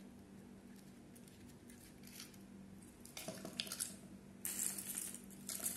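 Dry potpourri petals rustling, with small clicks against a seashell basket, as they are handled and dropped into it, starting about three seconds in.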